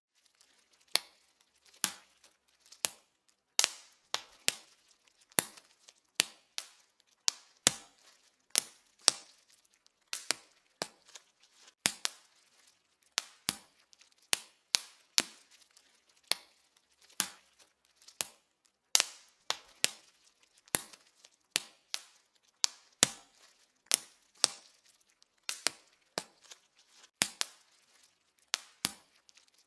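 Bubble wrap being popped by hand, one bubble at a time: sharp single pops at an uneven pace, roughly one or two a second, now and then two close together.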